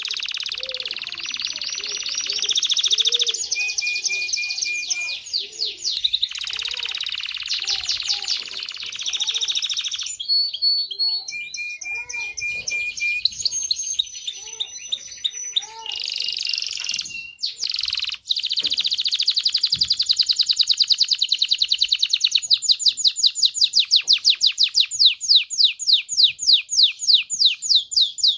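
Domestic canary singing a long, varied song of fast trills and repeated notes. It ends in a long rolling trill of rapid falling notes.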